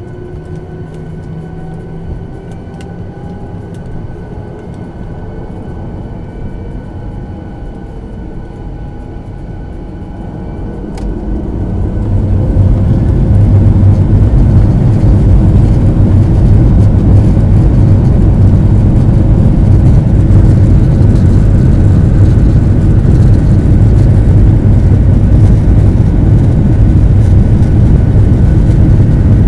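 Boeing 737-800's CFM56-7B turbofan engines heard inside the cabin from a window seat over the wing: a low hum at first, then about twelve seconds in the engines spool up to takeoff thrust and run loud and steady through the takeoff roll.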